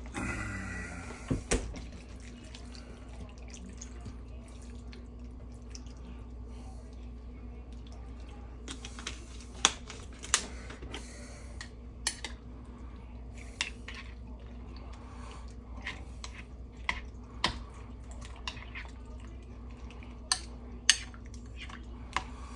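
Sliced cucumbers being mixed by hand in a glass bowl of water, vinegar and sugar: wet sloshing with scattered sharp clicks against the glass, over a steady low hum.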